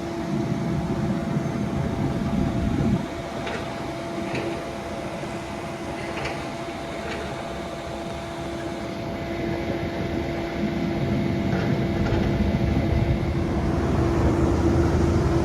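Greenheck commercial HVAC unit running: a steady hum with a constant tone, a low rumble that drops off about three seconds in and builds again later, and a few light clicks.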